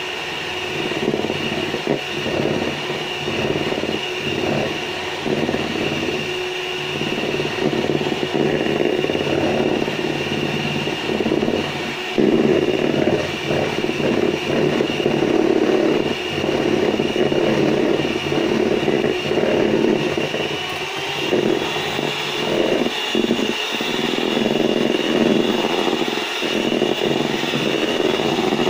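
Electric hand mixer running steadily, its beaters whipping egg whites and cream of tartar toward meringue, with the beaters scraping the bowl now and then.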